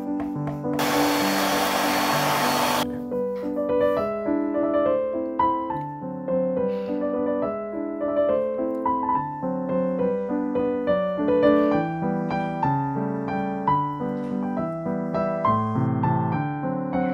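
Soft background piano music playing steadily, with a loud rushing hiss cutting in about a second in and stopping abruptly about two seconds later.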